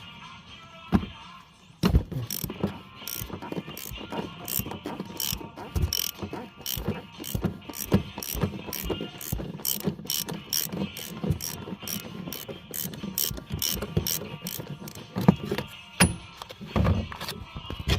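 Ratchet wrench clicking in an even rhythm, about two to three clicks a second, as it turns a 32 mm socket on the oil filter housing cap, with a few irregular knocks near the end.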